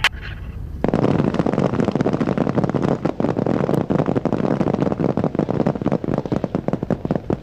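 Massed small-arms fire: many rifles firing at once, a dense, continuous crackle of rapid shots that starts suddenly about a second in and keeps on without a break.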